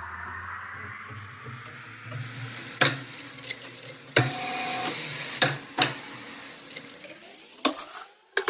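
A machine's motor running with a steady hum, broken by several sharp knocks.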